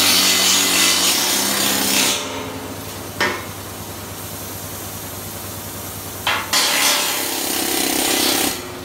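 Pneumatic needle gun hammering at heavy rust and grease build-up on a steel lorry chassis rail, stripping it back toward bare metal. It runs loud for about two seconds, goes quieter for about four with one short loud burst, then runs loud again for about two seconds before stopping near the end.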